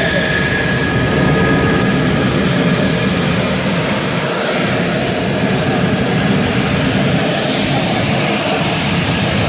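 F-16 fighter jet taxiing at close range, its jet engine running steadily with a high whine over a loud rush.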